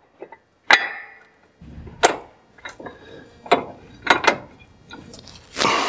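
A handful of metallic clinks and knocks as a Polaris RZR's secondary clutch is worked by hand onto its splined shaft, with a longer scraping noise near the end.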